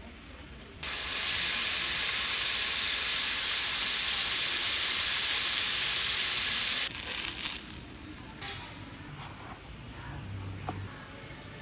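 Food sizzling in a hot frying pan: a loud, steady hiss that starts abruptly about a second in and cuts off about seven seconds in. A few faint knocks follow.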